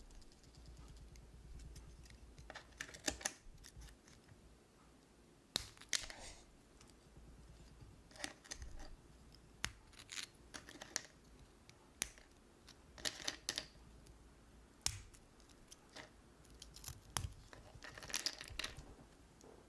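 Brittle dalgona sugar candy cracking and crunching in a series of sharp, crisp snaps, some in quick clusters.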